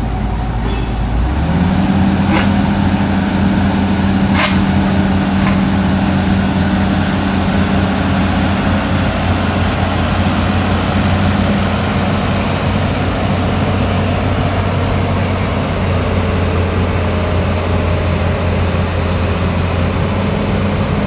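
Engine running steadily, its hum stepping up in pitch about a second in and then holding even. A few sharp clicks in the first few seconds.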